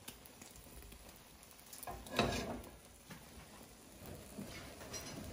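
Wad of paper towel rubbing across a nonstick frying pan, wiping out excess melted butter, with a brief louder swipe about two seconds in and a smaller one near the end, over the faint sizzle of the cooking omelet.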